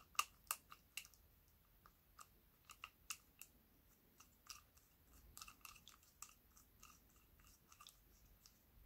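Faint, sharp plastic clicks from a cheap Daiso spinning reel being handled and turned by hand as it is taken apart. The clicks are irregular: a quick run of them at first, a few more about three seconds in, and another cluster past the middle.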